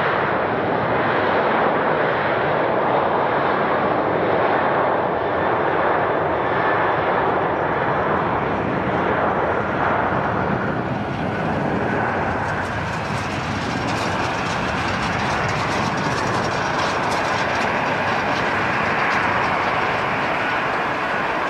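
Boeing 737-800's CFM56-7B turbofan engines at takeoff power during the takeoff roll and lift-off, a steady, dense jet noise. About halfway through, a crackling hiss joins it.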